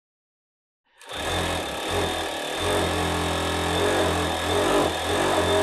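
Reliable 3100IC direct-drive coverstitch machine starts about a second in and sews a coverstitch seam in stretch fabric at a steady speed.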